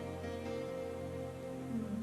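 Soft background music of sustained held notes, with a new low note coming in near the end.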